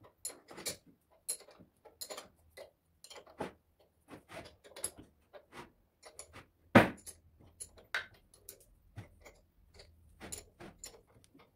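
Combination wrench clinking on the bolts of a Multilith 1250 compressor's end cover as they are tightened: irregular metal clicks, with one louder clank about seven seconds in.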